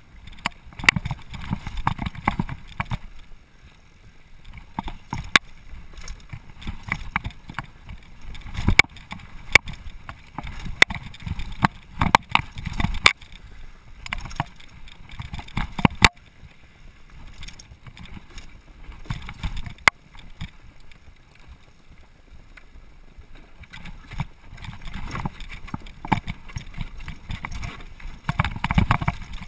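Mountain bike descending a rocky dirt trail, heard through a handlebar-mounted camera: tyres rumbling over dirt and stones, with irregular sharp clatters and knocks from the bike's frame, chain and suspension as it hits rocks. The noise comes in bursts and eases off for a few seconds past the middle.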